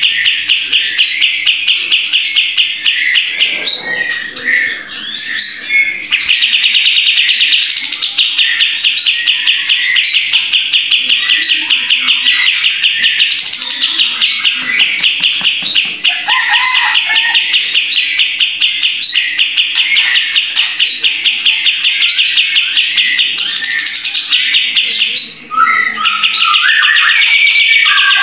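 Kapas tembak bulbul singing a long, very fast rattling trill with sharp chirps over it, broken by short pauses about four seconds in and a few seconds before the end.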